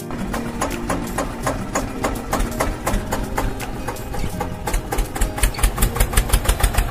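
Tractor engine running with an even chugging beat, which grows louder and more pronounced for the last two seconds.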